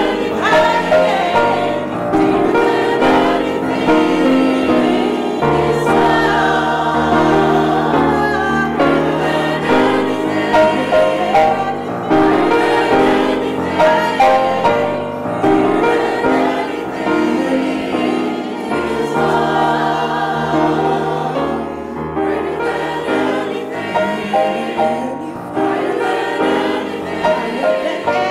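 A female soloist singing into a microphone, backed by a choir and accompaniment with sustained low notes.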